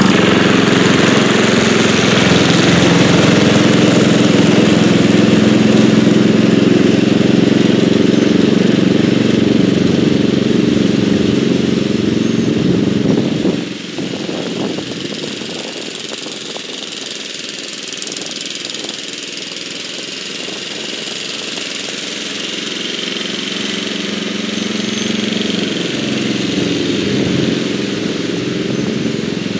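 The 11 hp Briggs & Stratton single-cylinder engine of a 1983 Bolens G11 lawn tractor, hot-rodded with raised compression and a different cam, running steadily close by. About halfway through it drops to a farther, thinner sound as the tractor mows tall grass, and it slowly grows louder toward the end.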